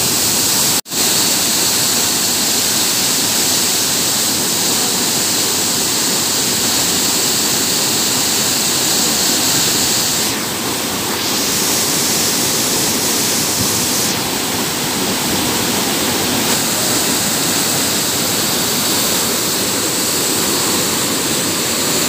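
Waterfall plunging into a rock pool: a loud, steady rush of falling water that cuts out for an instant about a second in.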